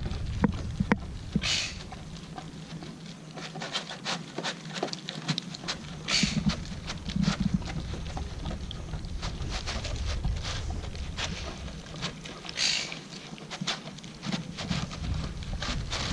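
A dog eating raw meat out of a plastic tray, with wet chewing and licking and many small clicks and knocks of teeth and tray, and three short hissing breaths through the nose.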